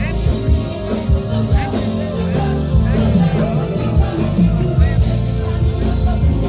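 Live gospel band playing, with bass, drums and singing.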